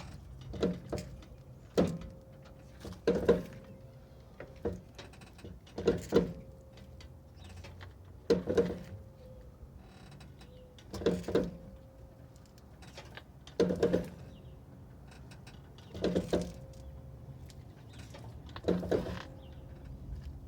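Repeated popping and creaking from a 1980 Jeep CJ5, a short cluster of pops about every two and a half seconds over a low steady rumble. The cause of the noise is unknown to the owner.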